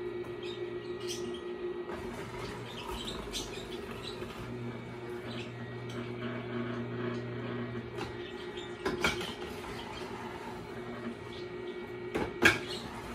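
Tribest Green Star Elite twin-gear juicer running with a steady low hum while vegetables are crushed between its slow-turning gears, with faint squeaky crackling. Two sharp knocks near the end, the second louder, as the plunger is pressed into the feed chute.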